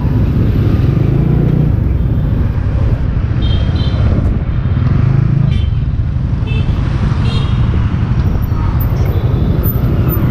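Honda Winner X motorcycle being ridden on the road: a steady rumble of engine and road noise with wind buffeting on the helmet-mounted action camera's microphone.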